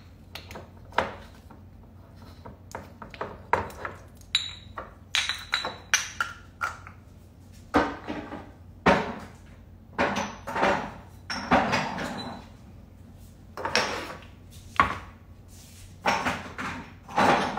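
Irregular kitchen clatter: knocks and clinks of seasoning jars and bottles being picked up and put away, a few of them ringing briefly.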